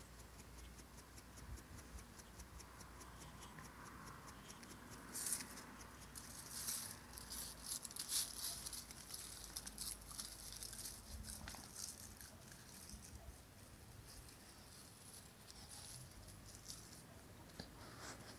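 Faint scratching and rustling from young dogs' paws scrabbling on concrete and dry leaves as they play, with a cluster of louder rustles about five to ten seconds in.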